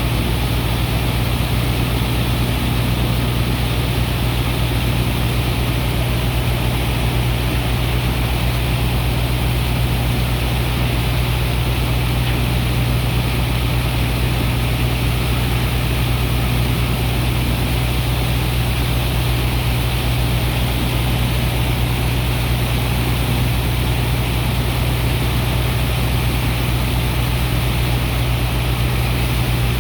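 Sand dredger's engine and pump running steadily, a deep even hum under a constant rushing noise, with no change in speed.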